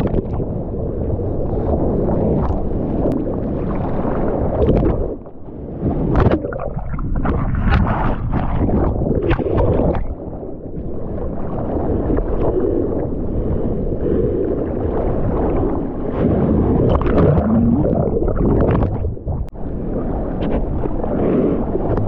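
Seawater rushing and splashing around a board-mounted camera as a bodyboard rides through whitewater, with wind buffeting the microphone and sharp slaps of spray. The rush drops away briefly about five seconds in and again around ten and nineteen seconds.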